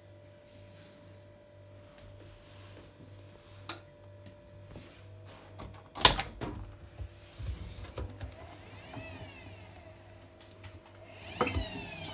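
Front-loading washing machine standing idle with a faint steady hum. About halfway through a sharp, loud click as a control-panel button is pressed, then a few light knocks and squeaks. Near the end the door latch clicks and the door is pulled open with a short squeak.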